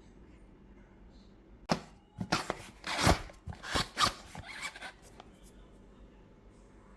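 Knife chopping on a cutting board: an irregular run of about a dozen quick, sharp cuts starting about two seconds in and lasting some three seconds.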